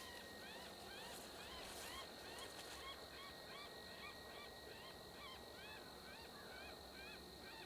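Geese honking: many faint, short calls overlapping at different pitches, several a second.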